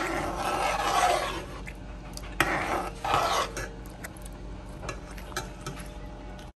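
A spoon stirring beans in seasoned water in a pot, scraping against the pot in several strokes, with a sharp clink at the start and light knocks between.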